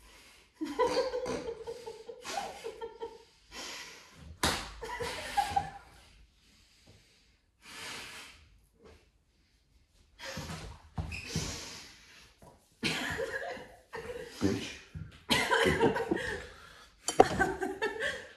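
Stifled laughter, snorting and heavy breathing from two people holding water in their mouths, in irregular bursts. A sharp smack comes about four and a half seconds in, and a sharper knock near the end is the loudest sound.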